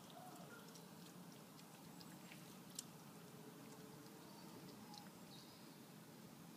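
Near silence: faint outdoor room tone with a few small scattered ticks and one sharper click about three seconds in.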